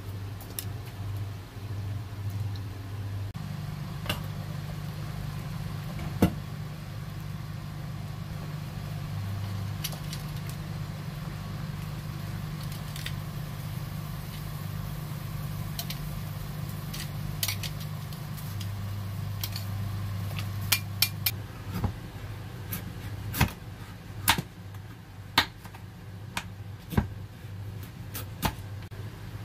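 A steady low hum that shifts in pitch a few times, with scattered clicks and light clatter. In the last eight seconds, sharp taps of a knife on a wooden cutting board as a kabocha squash is cut.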